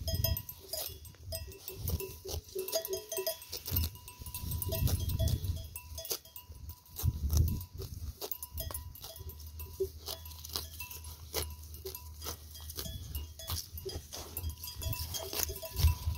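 Sheep grazing with their bells clinking irregularly, mixed with the crisp tearing and chewing of grass.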